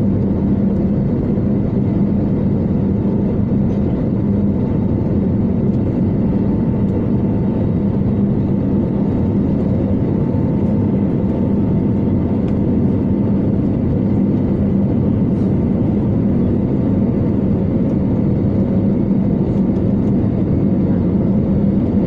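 Aircraft engines droning steadily, heard from inside the passenger cabin, with a constant low hum underneath.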